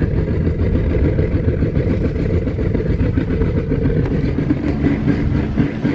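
A motor vehicle on the move, giving a steady, loud low rumble of engine and road noise.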